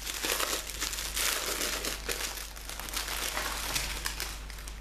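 Small plastic bags of diamond painting drills crinkling and rustling as they are handled and sorted, a dense run of irregular crackles.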